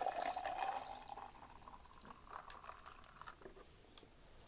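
Drink being poured into a cup. The pour runs for about a second and a half with a steady ringing tone, then gives way to faint small sounds.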